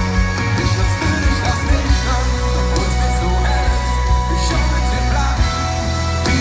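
Pop-rock band playing live through a concert PA, heard from within the audience: heavy bass and electric guitars.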